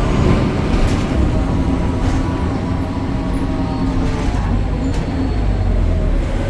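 BredaMenarini Avancity Plus city bus's Deutz diesel engine and ZF automatic gearbox running under way: a steady low rumble with a whine that sags gently in pitch in the second half, and a few light rattles.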